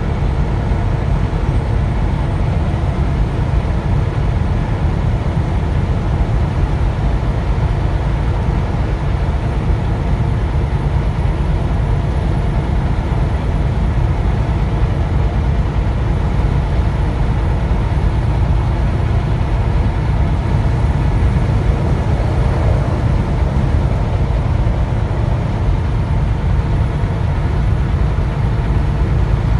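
Steady low rumble of engine and road noise inside a semi-truck cab cruising at highway speed.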